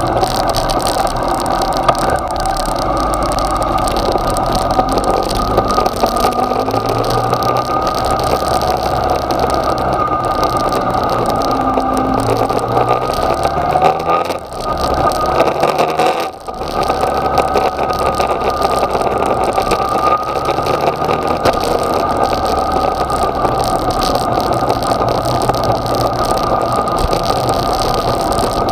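Yamaha XJ6's inline-four engine running as the motorcycle rides along, with wind noise on the bike-mounted microphone; the engine note rises and falls with the throttle. Two brief drops in the sound come about halfway through.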